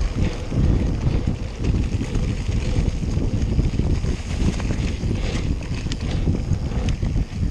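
Wind buffeting the microphone over the uneven rumble and rattle of a mountain bike riding fast over a bumpy grassy dirt track, with a few sharp clicks of the bike rattling in the second half.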